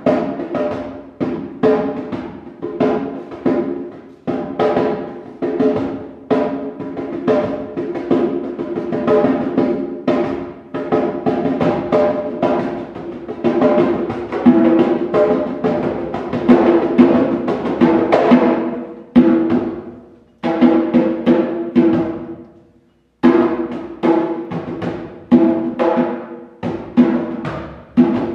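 Three djembes struck by hand in quick, irregular patterns, thickening into dense rolls mid-way, dying away to a brief silence about twenty seconds in, then starting again with spaced strokes.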